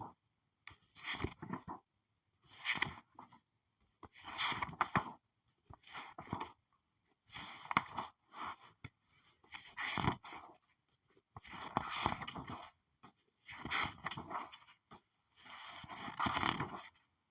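Paper pages being flipped one at a time: about nine separate rustling turns, each lasting about a second, with short silences between.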